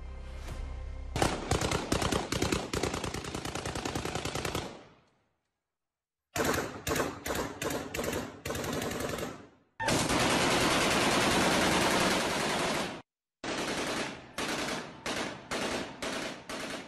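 Rifle gunfire in several clips cut together. First comes a long rapid automatic burst. Then a string of shots a fraction of a second apart, a continuous stretch of fire about three seconds long, and finally a run of separate shots about two or three a second. Each clip cuts off suddenly.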